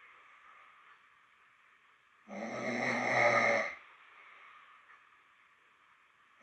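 A man snoring in his sleep: one loud snore a little over two seconds in, lasting about a second and a half.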